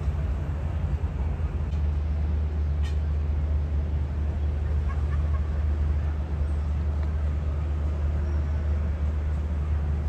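Low, steady rumble of a large motor yacht's engines and propellers churning water at the stern as it manoeuvres. A single faint click comes about three seconds in.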